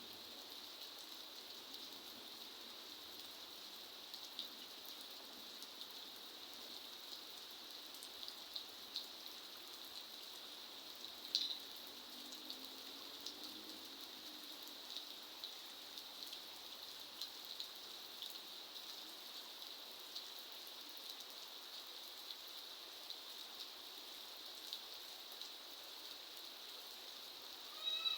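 Steady rain falling, with scattered individual drops ticking; one sharper drip stands out about eleven seconds in.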